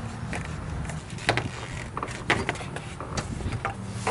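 Locking pliers working the spring clamp on a rubber upper radiator hose as the hose is twisted loose: a handful of scattered short metal clicks and knocks over a steady low hum.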